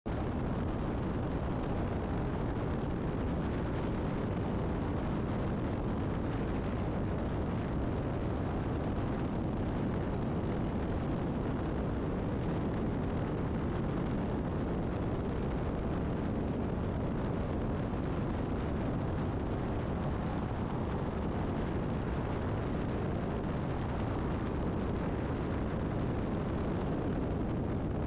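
Steady wind and road rush at highway speed, buffeting a camera mounted on the outside of a moving vehicle; the noise holds even throughout with no distinct engine note.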